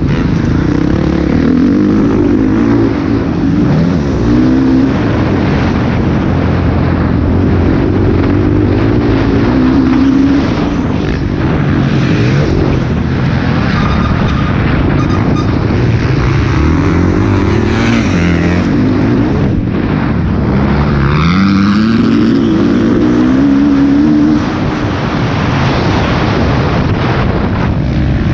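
Motocross bike engine heard from on the bike, revving hard under racing load, its pitch climbing and dropping back several times as the rider accelerates, shifts and brakes for corners.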